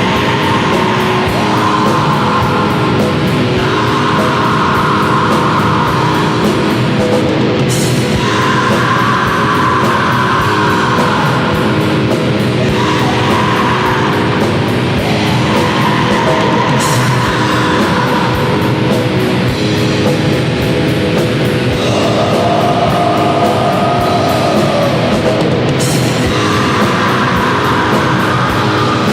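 Depressive black metal (DSBM) track playing as background music: a dense, unbroken wall of guitars with chords changing every few seconds.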